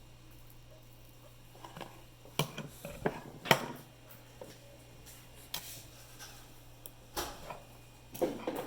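Irregular sharp clicks and light clatter of small hard tools and parts being handled during a mouse switch repair, the loudest about halfway through and a quick cluster near the end, over a low steady hum.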